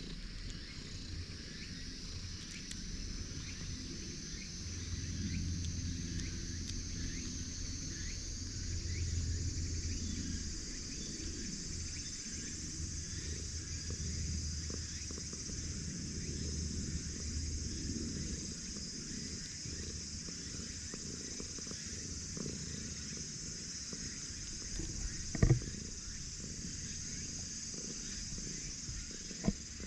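Ginger tabby cat purring as it is stroked on the head, a low rumble that is strongest in the first half and fades away later on, over a steady high drone. Two short sharp knocks near the end, the first the loudest sound.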